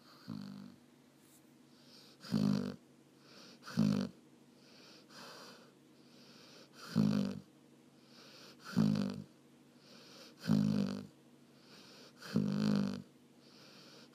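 A dog snoring in a regular rhythm: a low buzzing snore every one and a half to two seconds, with softer hissing breaths in between.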